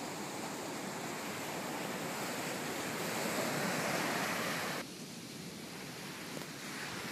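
Surf breaking and washing up a sandy beach, a steady rushing that swells over the first four seconds, with wind buffeting the microphone. The level drops suddenly about five seconds in, then builds again.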